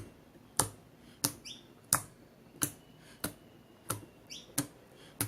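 Homemade slime squeezed and pressed in the hands, making about nine sharp pops, roughly one every two-thirds of a second, with a short squeak twice.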